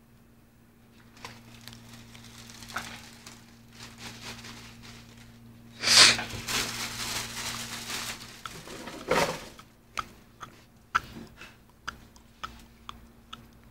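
Cellophane and paper wrapping on a bunch of roses crinkling and rustling as it is handled, loudest in two bursts near the middle. It is followed by a run of short, sharp ticks and clicks as the stems are worked and laid out.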